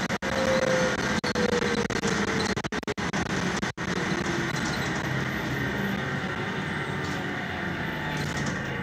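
Interior of a city transit bus on the move: steady engine and road noise with a drivetrain whine that falls in pitch over the first few seconds as the bus slows. The recording cuts out briefly a few times in the first four seconds.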